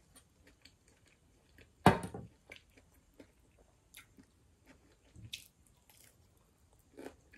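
Close-up chewing of pizza, with small crunches and mouth clicks. There is one sharp, loud click about two seconds in, and a few smaller ones later.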